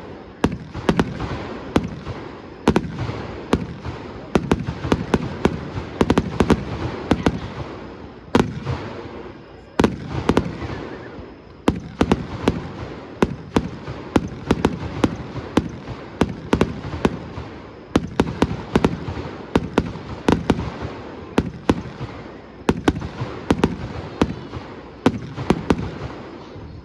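Fireworks display: a continuous barrage of aerial shell bursts, several sharp booms a second over steady crackling.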